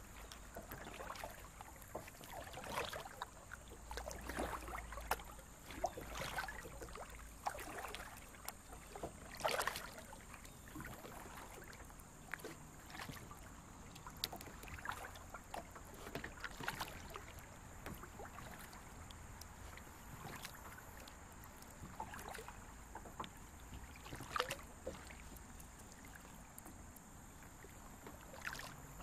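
Kayak paddle dipping and splashing in creek water, a stroke about every one to two seconds.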